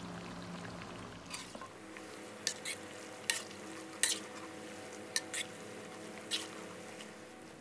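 Shredded pork deep-frying in hot oil with a steady, soft sizzle, while a metal utensil stirs it and clicks sharply against the pan about eight times.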